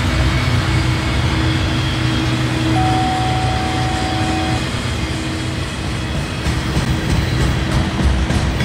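Freight train rolling past at close range, its flatcars loaded with locomotive trucks: a steady low rumble of wheels on rail. A thin steady whine is heard for a couple of seconds around the middle, and sharper clicks come toward the end.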